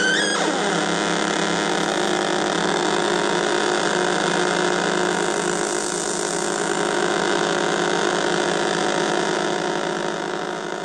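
555-timer drone synthesizer sounding a dense, buzzing drone of several oscillators stacked together. A high sliding tone stops about half a second in, leaving the steady layered drone, which starts to fade near the end.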